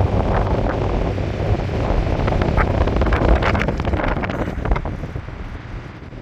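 Wind buffeting the microphone: a heavy, uneven low rumble with scattered crackles, fading toward the end.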